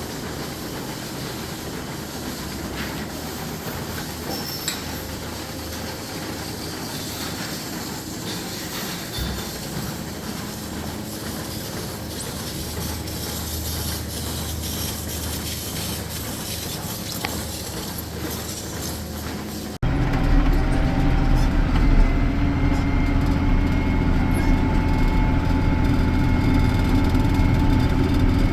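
Farm machinery used for chopping silage running steadily, a mechanical rumble and clatter. About twenty seconds in it cuts to a louder, closer engine running steadily.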